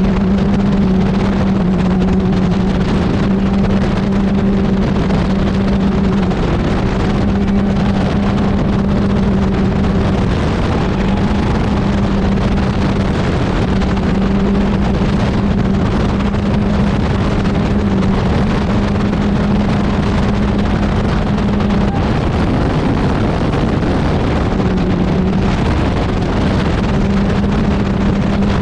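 Can-Am Maverick X3 Turbo RR's turbocharged three-cylinder engine, breathing through an HMF single exhaust, running at a steady cruising pitch while driving along a gravel trail. The drone holds a constant pitch, with its tone thinning out briefly about three-quarters of the way through.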